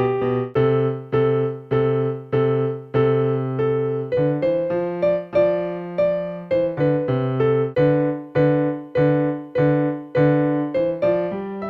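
Electronic keyboard played with both hands: two notes sound together, struck about twice a second, each fading before the next.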